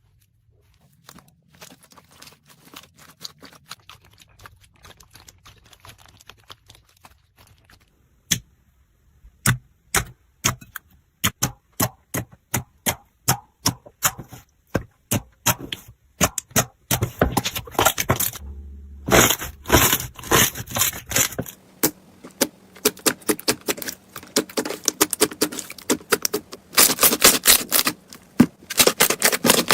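Slime being pressed and squeezed by hand, giving sharp clicks and crackling pops. They are faint and sparse at first, become louder, distinct clicks from about eight seconds in, and later run together into dense crackling.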